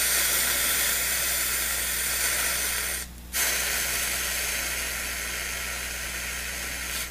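Steady hiss over a low, steady hum, breaking off briefly about three seconds in.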